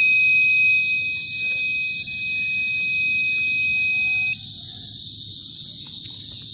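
Gas-leak detector's buzzer sounding one steady high-pitched tone, then cutting off suddenly about four seconds in as the gas level falls back toward normal. A steady high background chirring carries on after it.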